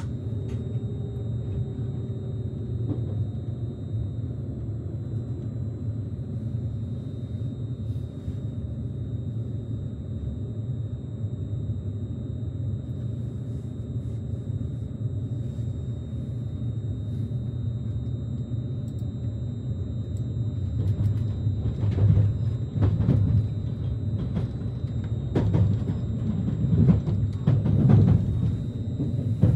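Cabin running noise of a JR Kyushu 787 series limited express train under way: a steady low rumble from wheels and running gear. Several louder thumps come in the last third.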